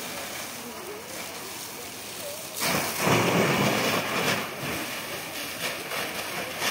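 Large house fire burning, a steady crackling rush of noise, with a much louder surge of rushing noise for about two seconds around the middle.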